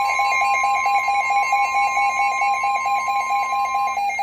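NOAA Weather Radio 1050 Hz warning alarm tone, a steady pitch that cuts off near the end, heralding a flash flood warning. Over it a weather alert receiver's alarm beeps about six times a second and keeps going.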